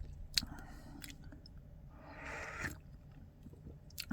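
A person tasting Wuyi rock tea: a soft slurp about two seconds in and quiet mouth sounds, with a light click near the start.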